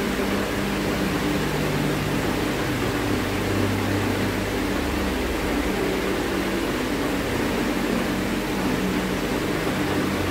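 Steady machine hum with an even hiss, with no distinct events.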